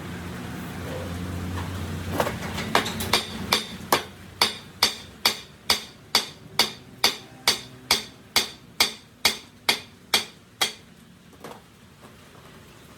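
A hammer striking metal in an even rhythm, about two blows a second, each with a short metallic ring, some twenty blows in a row that stop a couple of seconds before the end. A low hum fades out before the blows begin.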